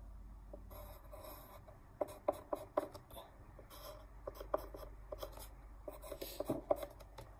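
Pen strokes drawing on paper: short scratchy strokes in irregular runs, clustered about two seconds in and again from about four to seven seconds.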